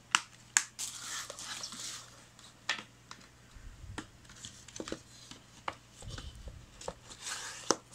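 Handling of a plastic Blu-ray case and its cardboard slipcover: scattered clicks and taps, brief sliding rustles as the slipcover goes back on, and a couple of soft thuds as the case is set down on the table.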